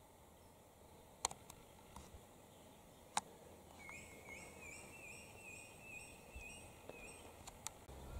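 Two sharp clicks about two seconds apart, then a faint bird call: a rapid series of short chattering notes, about three a second, lasting roughly three seconds.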